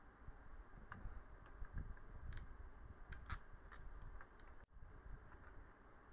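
Faint scattered clicks and light handling noise from a Cat5e cable, its RJ45 plug and a crimping tool being handled, with a few sharper clicks in the middle.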